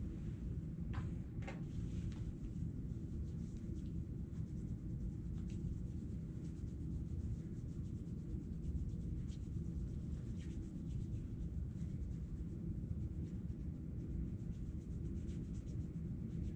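Steady low room hum with faint, soft rustling of hands rubbing together, with a couple of slightly louder rustles about a second in.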